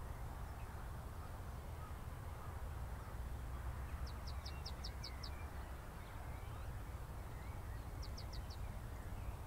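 A steady low rumble of wind on the microphone, with a bird calling in quick runs of short, high notes: about seven notes around four seconds in and four more near the end.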